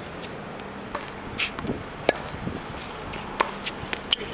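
Tennis ball struck by rackets and bouncing on a hard court during a rally: a series of sharp pops, the loudest about two seconds in.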